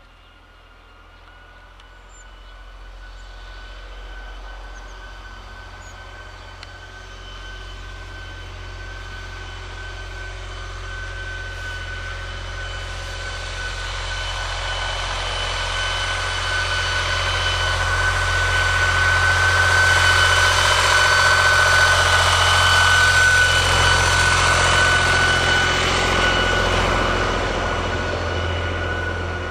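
Steady engine hum with a high whine from a passing vehicle. It grows from faint to loud over about twenty seconds and then eases off near the end.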